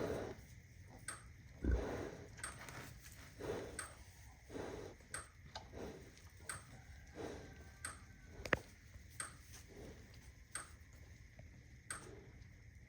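Electric fence charger snapping at a steady pace, about once every second and a half, with soft animal noises in between.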